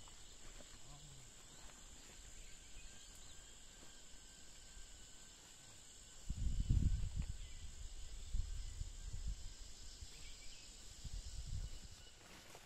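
Insects chirring in a steady high drone. From about six seconds in, a low rumbling comes in and out and is louder than the insects.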